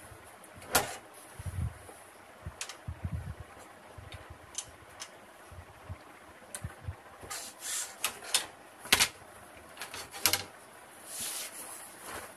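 Cloth being handled and spread on a cutting table: swishes of fabric with scattered knocks and clicks of wooden scales and tailor's shears being moved on the table, the sharpest knocks about a second in and near the middle.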